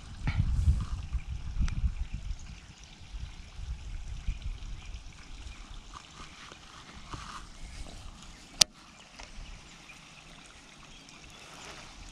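Wind buffeting the microphone in gusts, heaviest in the first few seconds and easing after, with one sharp click about eight and a half seconds in.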